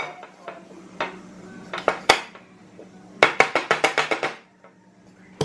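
Hands tapping and slapping an upturned metal tube cake tin on a plate to shake a freshly baked carrot mini cake loose: a few separate knocks, then a quick run of about ten taps in a second near the middle.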